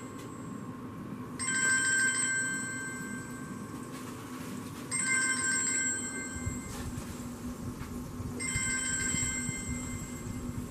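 A phone ringing: an electronic ringtone of several steady tones together, sounding three times, each ring about two seconds long and starting about every three and a half seconds.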